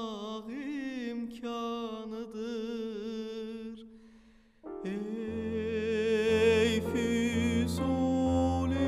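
Male operatic voice singing a slow romance with wide vibrato, holding a note that fades away about four seconds in. After a short pause, piano accompaniment enters with deep sustained chords and the voice comes back on a loud, held closing note.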